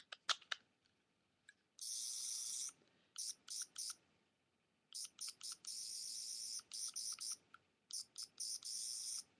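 Tenth Doctor sonic screwdriver toy playing its high-pitched electronic sound effect from its small speaker, in short bursts and longer stretches of one to two seconds as its button is pressed and released. A few light clicks come just before the first burst.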